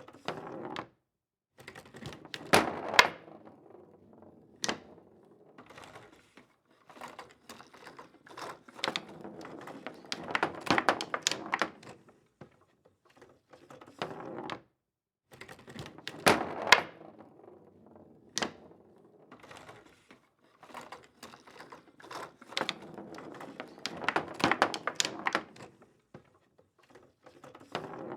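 Foosball table in play: sharp clacks of the ball being struck and knocking about, over stretches of rods and players rattling. There are a few short silent gaps, and the loudest hits come about three seconds in and again about seventeen seconds in.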